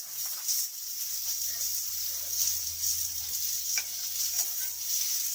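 Chicken steak sizzling steadily in a hot Turk forged-iron frying pan. A low steady hum comes in about a second in.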